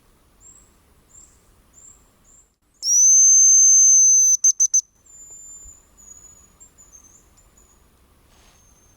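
Hazel grouse lure whistle blown in the hen's call: one long, loud, high whistle of about a second and a half, followed by three quick short notes. Softer high thin whistles come before and after it.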